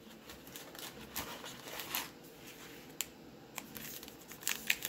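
Light rustling and clicking as a trading card pack is lifted out of its cardboard box and handled, with the pack's plastic wrapper crinkling more busily near the end.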